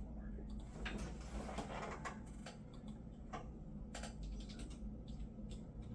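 Light, irregular clicks and taps from small objects or equipment being handled, over a faint steady low hum.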